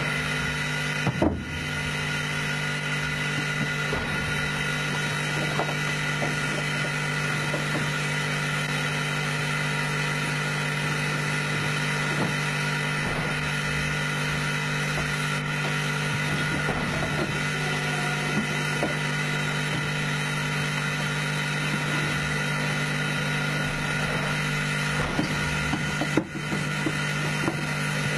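Steady hum and hiss inside the cab of steam locomotive #58, with a sharp metallic knock about a second in and a few lighter knocks near the end.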